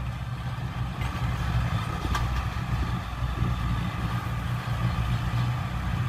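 Diesel engines of a small crawler bulldozer and a loaded Hyundai dump truck running with a steady low rumble as the dozer pushes the stuck truck free. A single light click comes about two seconds in.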